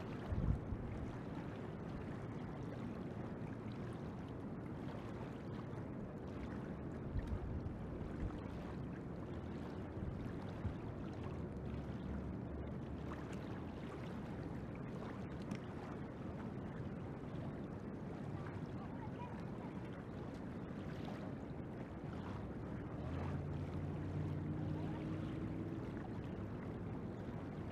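Steady rush of river water flowing over shallows, with wind knocking on the microphone in a few low thumps. A low steady hum joins in a few seconds before the end.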